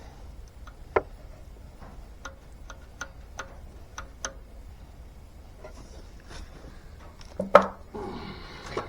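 Scattered light clicks and taps of metal tools and parts being handled, then a louder clank about seven and a half seconds in followed by a short rattle.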